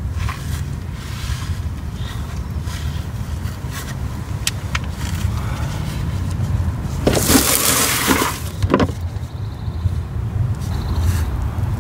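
Plastic oil drain pan dragged out from under the car over dry leaves and grass: a rough scraping and rustling about seven seconds in that lasts a couple of seconds, over a steady low rumble.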